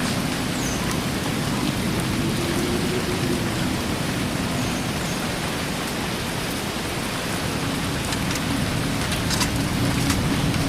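Steady rain falling, with a few sharper drop ticks near the end.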